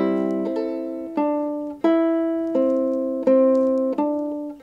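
Ukulele played in a slow, simple tune: about seven plucks, one every 0.7 s or so, each ringing and fading before the next, the pitch changing from note to note.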